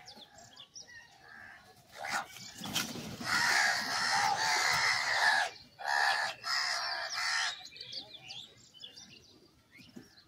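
A flock of house crows cawing, many calls overlapping in two loud stretches a few seconds in, with scattered single calls around them.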